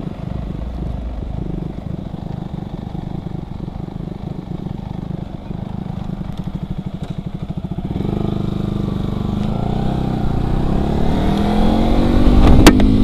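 Yamaha R15's single-cylinder engine, fitted with an aftermarket Ronin Black Katana racing exhaust, idling steadily. About eight seconds in it pulls away and the revs climb, getting louder, with a sharp click near the end.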